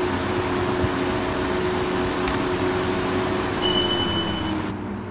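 Pedestal AC fan running fast on a TRIAC phase-control speed controller: a steady rush of air with a motor hum. About four seconds in there is a short high beep, then the hum falls in pitch and the air noise drops as the fan is switched to a lower speed.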